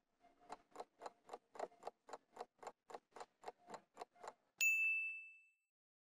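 Countdown-timer sound effect: a clock ticking steadily about four times a second, then a single loud ding about four and a half seconds in that fades over about a second, signalling that time is up.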